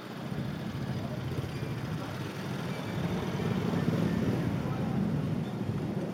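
Wind rumbling on the microphone of a camera moving along the street, over traffic noise; it grows louder and is loudest about four seconds in, as a small box truck passes close alongside.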